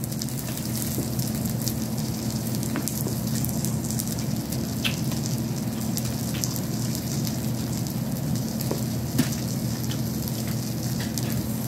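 A steady hiss with a low hum under it, and a few faint clicks and scrapes of a fork picking at crab and shrimp on a foil-covered tray.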